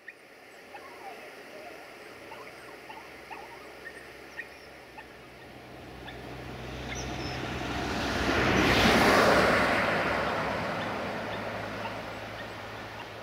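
Outdoor ambience with small scattered bird chirps, then a passing vehicle whose noise swells to a peak about nine seconds in and slowly fades away.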